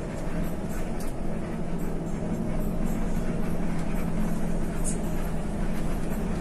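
Intercity bus driving at speed, heard from inside the cabin: a steady engine hum under a constant rumble of road and tyre noise.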